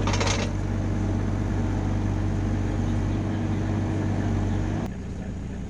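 Compact excavator's diesel engine running steadily at working speed, with a brief hiss at the start; about five seconds in it drops abruptly to a quieter, lower running.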